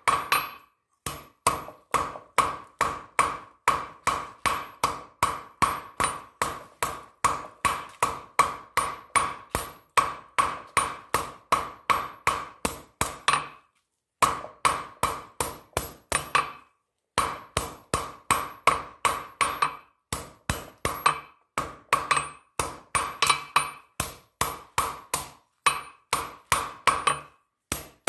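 Blacksmith's hammer striking steel on an anvil in a fast, steady rhythm of about three blows a second, each blow ringing. The runs of blows break off briefly now and then, for example about halfway through and again a few seconds later.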